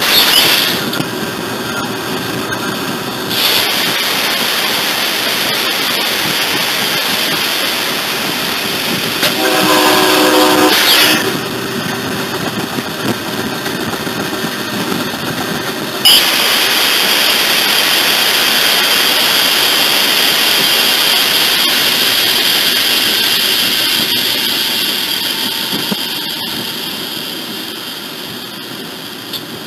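Freight locomotive running at speed, heard from its cab, with steady wheel and engine noise. The locomotive's horn sounds briefly at the start and again for under two seconds about nine seconds in. About halfway through a loud steady hiss starts suddenly and slowly fades near the end.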